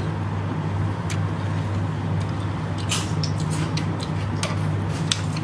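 A steady low machine hum fills the kitchen, with a few light clicks and clinks of a metal spoon in the dish of chana chaat.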